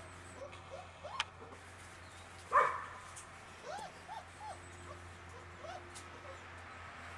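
Puppies whining in a string of short rising-and-falling squeaks, with one sharp, louder yip about two and a half seconds in.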